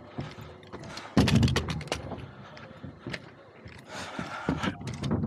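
A heavy, hollow thud on a wooden roof deck about a second in, followed by a run of lighter knocks and clicks, and more knocking and scraping around four seconds in.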